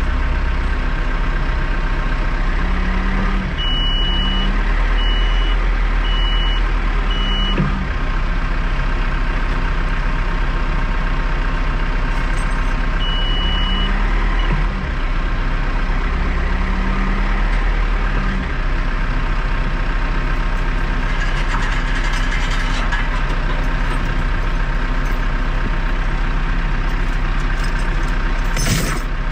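Loader tractor's engine running steadily, its note rising briefly several times, with a reversing alarm giving short high beeps in runs. A short burst of noise comes near the end.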